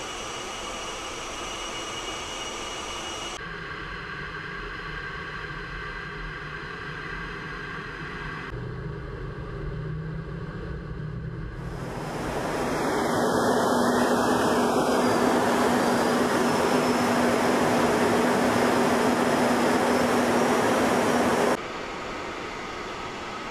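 Jet engine noise from F/A-18 fighter jets: a steady rushing sound that changes abruptly at several cuts, swells to its loudest about twelve seconds in with a steady low hum under the rush, and drops off suddenly near the end.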